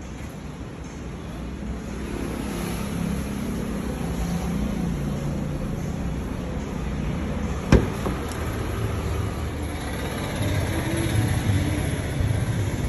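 Steady background rumble and hiss, growing slightly louder, with a single sharp click about eight seconds in.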